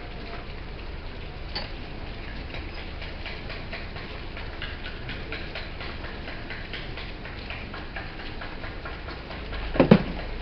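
Scattered light clicks and taps of parts and tools being handled during washing machine repair, over a steady low hum, with one louder brief sound near the end.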